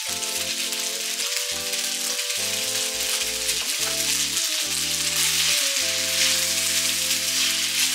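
Boiled spaghetti noodles sizzling in hot oil in a frying pan over high heat, being fried on their own to get a little browned. Soft background music with held notes plays underneath.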